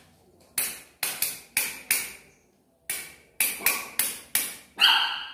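Hand rapping on a metal door grille: about a dozen sharp knocks in irregular clusters. Near the end one knock rings on with a clear metallic tone.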